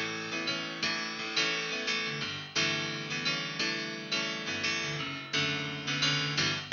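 Instrumental music: a melody of struck notes, about two a second, each fading before the next.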